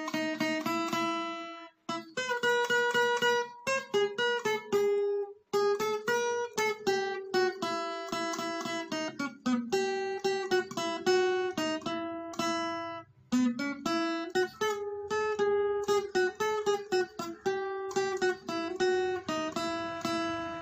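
Background music: an acoustic guitar playing a melody of plucked notes, with a few brief breaks.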